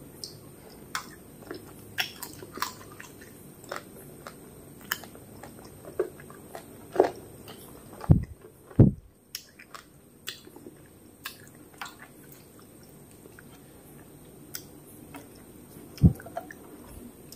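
Close-up sounds of a person eating rice and fish curry by hand: wet chewing and mouth clicks, fingers squishing rice on a metal plate, and a few louder low thumps, two about eight to nine seconds in and one near the end.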